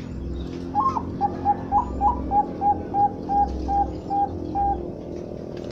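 Zebra dove of the Bangkok-bred perkutut line cooing: a few higher opening notes, then a run of about a dozen short, even coos at roughly three a second, ending about a second before the end. A low pulsing hum runs underneath.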